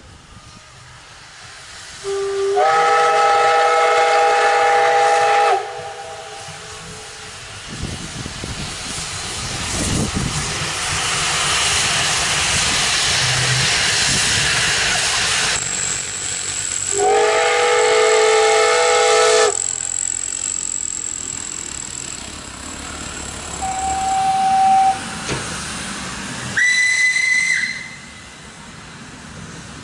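Steam locomotive whistle blowing two long chord-like blasts about a dozen seconds apart, with loud steam hiss between them as the engine pulls away with its train. A shorter, higher whistle that slides up in pitch sounds near the end.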